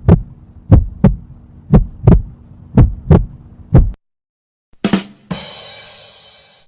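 Heartbeat sound effect: paired low thumps, lub-dub, about once a second, four or five beats. It stops about four seconds in and is followed by a short hit and a long fading ringing noise.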